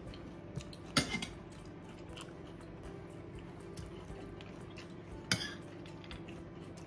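Two sharp clicks of cutlery against a plate during a meal, one about a second in and one a little after five seconds, over a faint steady low hum.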